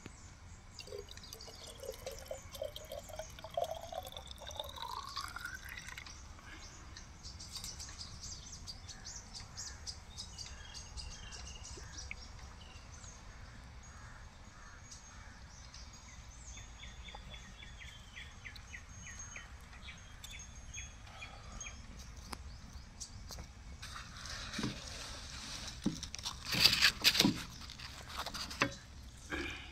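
Liquid poured into a container, its pitch rising steadily over about five seconds as the container fills. Near the end, a few loud knocks and clatters.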